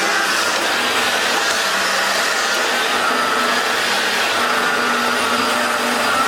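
Eureka Floor Rover NEU562A upright bagless vacuum cleaner running at full suction over a hard floor, a steady rushing motor sound with a thin steady whine.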